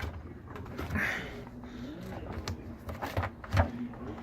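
Scattered clicks, knocks and a brief scrape of hands and a screwdriver working the washing machine's front rubber door boot off the cabinet.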